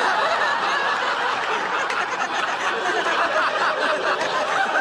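Sitcom studio audience laughing, many people laughing together at a steady level.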